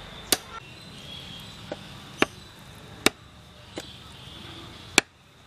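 Large knife chopping raw chicken on a wooden log chopping block: four loud, sharp chops at uneven spacing of about one to two seconds, with a couple of lighter knocks between them.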